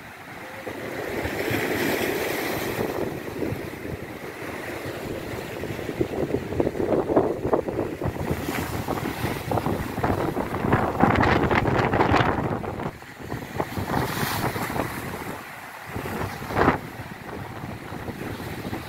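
Wind gusting on the microphone over sea waves washing on the shore, swelling and easing, loudest a little past the middle, with a short sharp gust near the end.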